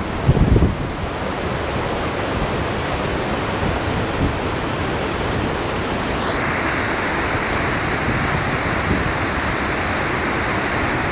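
Fast river water rushing over rocks in rapids, a steady loud rush that turns brighter and hissier about six seconds in as the water comes close. Low buffeting on the microphone in the first second.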